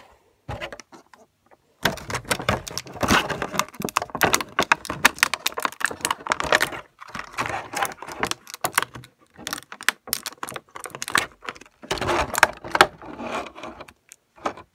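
Clear plastic blister packaging of a toy crackling and rattling as it is handled and rummaged through, a dense run of crinkles and clicks starting about two seconds in and stopping shortly before the end.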